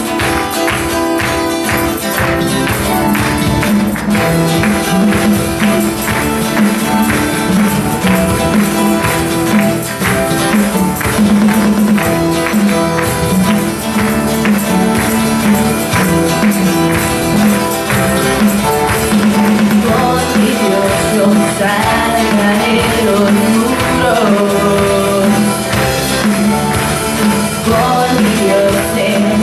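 Live church worship band playing an upbeat song: acoustic and electric guitars and keyboard, with a tambourine shaken along. From about two-thirds of the way through, voices come in singing the melody.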